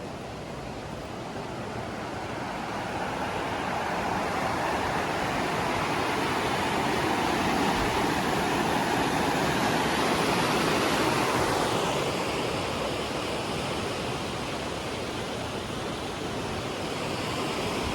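Steady rush of water from a mountain gorge stream and waterfall, swelling louder toward the middle and easing slightly near the end.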